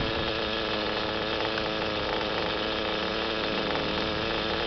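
Small engines of 1:8 scale radio-controlled off-road cars running steadily, a continuous buzz with several steady tones and no breaks.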